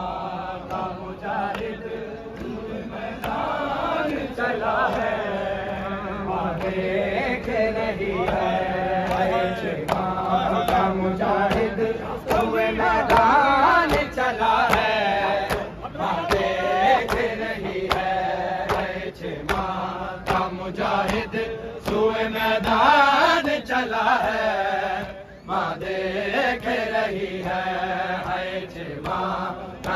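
Men singing a Urdu noha, a Shia mourning lament, in chant-like unison, amplified through a portable loudspeaker. A regular beat of sharp strikes runs under the singing, typical of chest-beating (matam).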